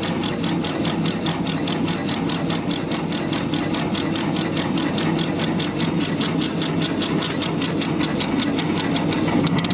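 Laser engraver running a fill pass, its head scanning back and forth in a quick regular rhythm of about six strokes a second over a steady hum. Near the end the strokes speed up into a faster, finer pattern.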